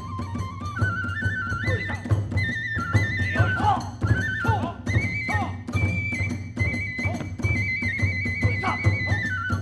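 Kagura hayashi accompaniment: a bamboo transverse flute playing a held melody that steps up and down, over fast, steady drumming and small hand cymbals.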